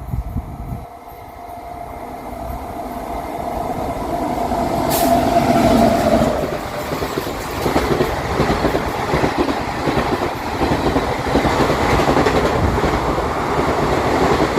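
An express train hauled by a WAP7 electric locomotive passing at about 110 km/h. A steady tone fades out in the first six seconds while the train noise swells. The loud, continuous rush and rattle of the coaches' wheels on the rails then runs on to the end.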